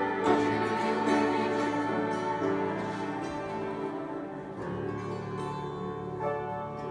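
Instrumental passage on piano and hammered dulcimer, steady sustained notes changing every second or so, with no singing; the texture thins about halfway through.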